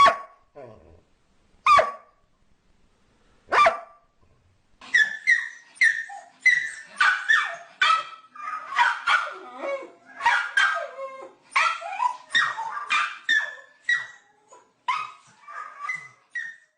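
Dog barking: a few single barks spaced about two seconds apart, then a fast, unbroken run of high-pitched barks from about five seconds in.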